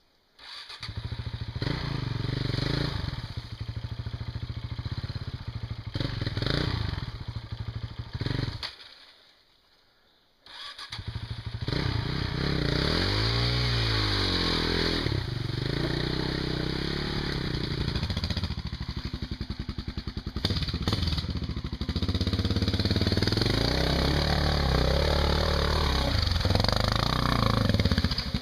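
Large single-cylinder enduro motorcycle engine revving unevenly as the bike works through mud, rising and falling in pitch. The sound cuts out for about two seconds about a third of the way in. It then comes back and runs steadier and louder over the last several seconds.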